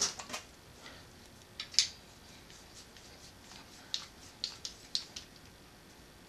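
Sharp metallic clicks and clinks of hand tools being handled at a bare engine block: one loud click just before two seconds in, then a quick run of about five lighter clicks between four and five seconds.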